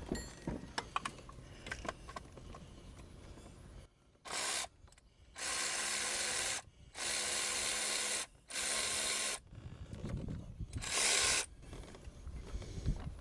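Cordless electric ratchet spinning out water pump bolts in five short runs, with light clicks of tool handling before the first run.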